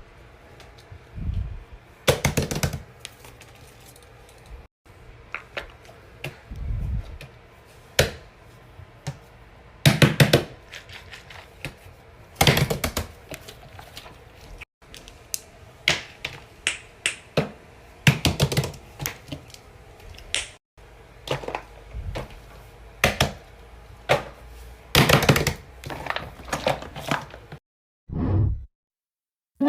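Fidget toys being handled close up: an irregular run of sharp clicks and taps, some in quick clusters, with a few dull thumps.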